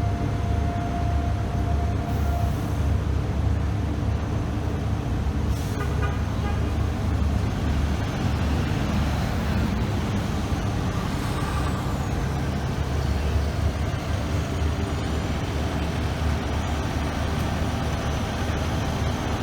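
Deep, steady rumble of heavy vehicle engines in street traffic, with a brief horn toot about six seconds in.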